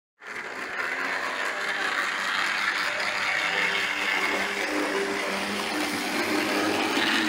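Triang EM2 00-gauge model electric locomotive running on the track: a steady whirr of its motor and gears with wheel noise on the rails, the low whine drifting a little in pitch. It starts abruptly just after the beginning.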